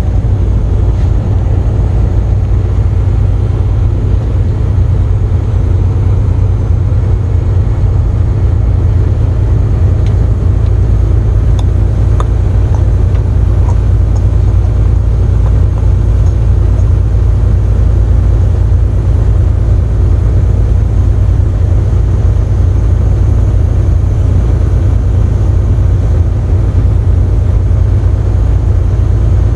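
Steady low rumble of a semi truck's diesel engine and road noise inside the cab while it cruises at highway speed.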